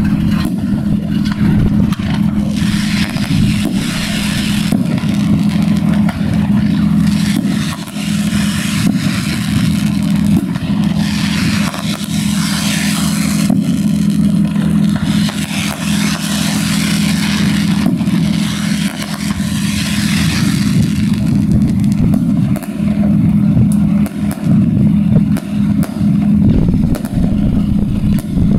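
Fireworks display going off: hissing bursts through the middle and a run of sharp crackles and pops near the end, over a steady low drone that is the loudest thing throughout.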